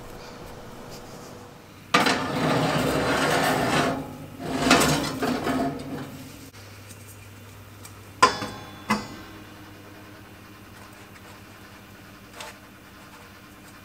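Kitchen handling sounds: a rough rubbing and scraping for about four seconds, then two sharp metallic clinks at the oven, under a second apart, over a steady low hum.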